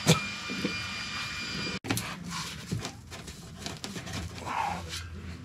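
Scattered clicks and metallic knocks of hand tools working on the exhaust fasteners under a car.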